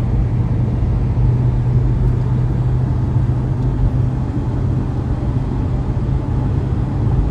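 Steady low vehicle rumble with a constant low hum, as heard from inside a car.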